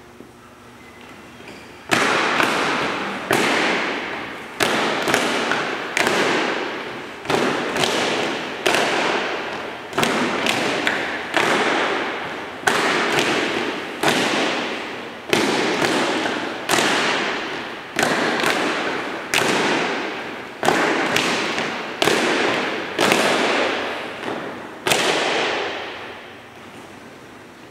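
Cadet drill team stamping their boots in unison on a hard hangar floor, a sharp stamp about every second, each one ringing out in a long echo through the hall. The stamps begin about two seconds in and stop shortly before the end.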